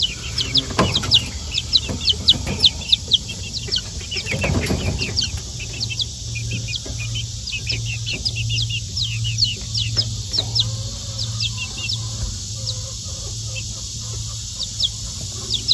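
Young bantam chickens peeping: a rapid run of short, high, falling peeps, thickest in the first few seconds and thinning out later.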